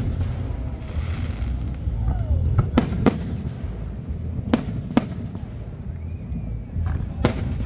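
Aerial firework shells bursting overhead in sharp bangs: two close together about three seconds in, two more about a second and a half later, and one near the end, over a steady low rumble.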